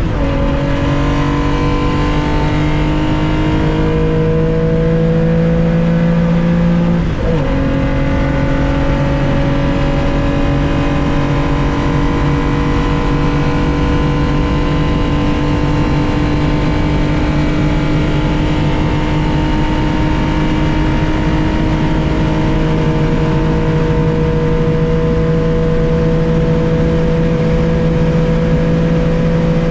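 1965 Porsche 911 2.0's air-cooled flat-six pulling at full throttle, heard from inside the car. It shifts up right at the start and again about seven seconds in, then the engine note climbs slowly and steadily for the rest of the time as the car accelerates in a high gear.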